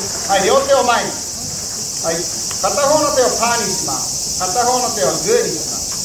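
A steady, high chorus of crickets chirping, with a voice speaking in short phrases over it.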